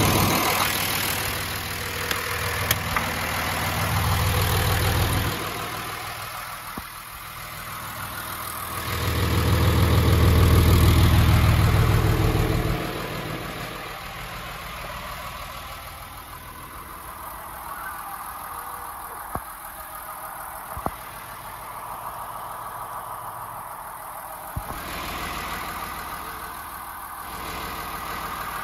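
John Deere 2955 tractor's six-cylinder diesel engine idling. A louder low rumble swells for a few seconds near the middle, and a few sharp clicks come later.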